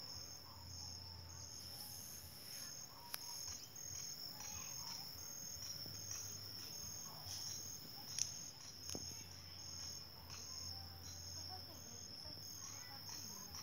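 Insects chirping in the field: a continuous high trill with a pulsed chirp repeating about one and a half times a second. A few faint knocks, the loudest about eight seconds in.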